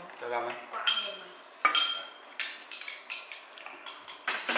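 Tableware clinking: utensils knocking against bowls and dishes, several sharp clinks, the loudest about a second and a half in with a short ring.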